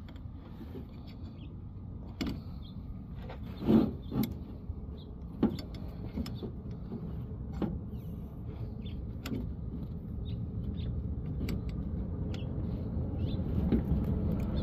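Scattered clicks and knocks of fuel pump parts being handled and pushed together on the pump assembly, the loudest a short clatter about four seconds in. A low background rumble grows louder toward the end.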